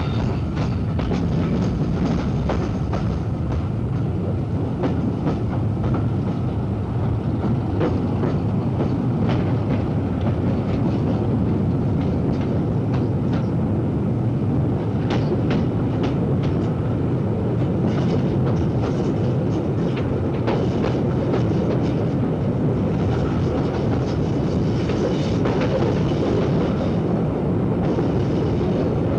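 Passenger train running along the track, heard from its open carriage window: a steady rumble with scattered clicks of the wheels over the rails.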